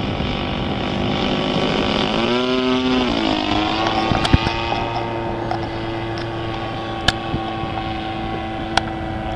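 Petrol engine of a radio-controlled model Pilatus plane running in flight. Its pitch rises and bends about two seconds in, then holds a steady, higher note, with a few sharp clicks later on.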